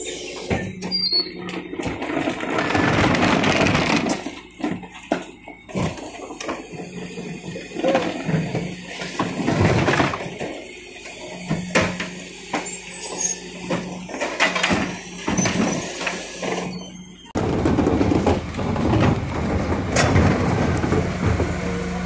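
Refuse truck's rear compaction body and bin lifters at work: a steady hydraulic hum under irregular scraping, creaking and knocking as the packer moves rubbish through the hopper. Green wheelie bins clatter against the lifter as they are raised and tipped.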